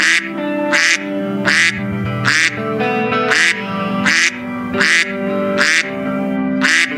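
A duck quacking again and again, about one quack every three-quarters of a second, over steady background music.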